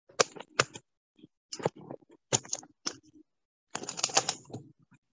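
A run of irregular sharp clicks and light knocks, several in quick little clusters, with a longer rattling cluster near the end.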